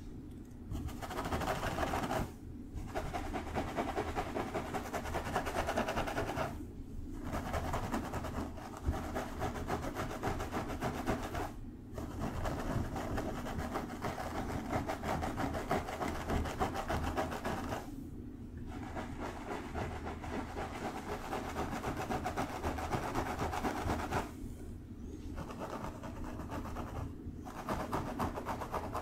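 Fingertips scratching and rubbing through long hair on a scalp, close to the microphone: a continuous crackly rustle, broken by short pauses every few seconds as the hands lift and reposition.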